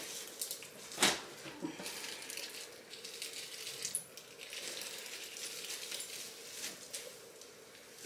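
Faint handling sounds of disposable plastic gloves and a squeeze applicator bottle of hair dye being worked through short hair: soft rustles and small clicks, with one sharper click about a second in.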